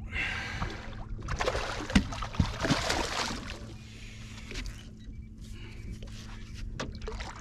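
Steady low hum of a bow-mounted electric trolling motor, under two bursts of rustling noise in the first half and a couple of sharp knocks about two seconds in.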